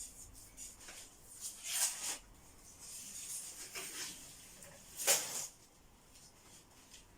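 Old wallpaper being torn off a wall: a few short rasping tears, the loudest about two and five seconds in, with fainter rustling between.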